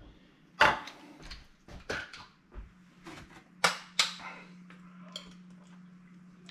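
Spoon and kitchen containers clinking and knocking as sauce is spooned into a container: several sharp clicks, the loudest about halfway through. A low steady hum comes in at the same moment.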